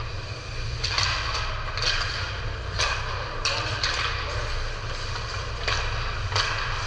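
Sounds of play during a team game: a string of short, sharp scrapes and knocks, several in each second, over a steady low hum.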